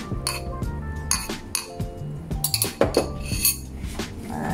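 Plastic rice paddle knocking and scraping against a glass baking dish while sushi vinegar is mixed into cooked rice, with scattered sharp clinks. Background music with sustained tones plays underneath.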